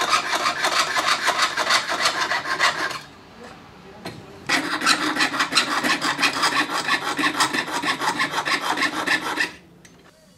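Jeweler's piercing saw cutting silver sheet on a wooden bench pin, with rapid back-and-forth rasping strokes. One bout of about three seconds, a short pause, then a longer bout that stops near the end.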